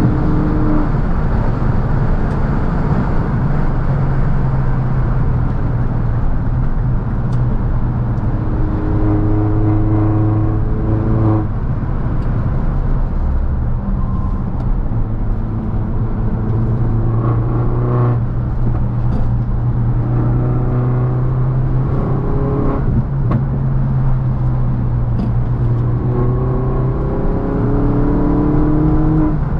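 R56 Mini Cooper S's turbocharged 1.6-litre four-cylinder engine heard from inside the cabin while driving, its note rising under acceleration several times and dropping back in between.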